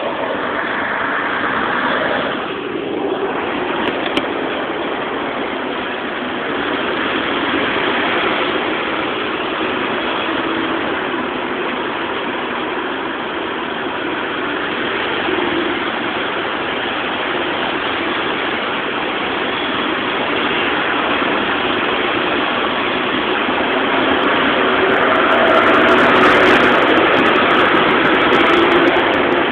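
Steady road traffic noise with vehicle engines running, growing a little louder near the end.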